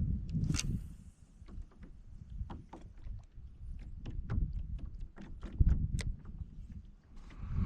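A kayak sitting on the water, with small waves lapping and slapping against its hull. Many light, irregular clicks and knocks come from the boat and its gear, and a heavier knock sounds near the end.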